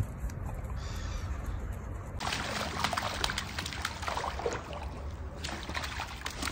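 Water splashing and trickling as a small dog wades into the shallow edge of a pool, starting about two seconds in.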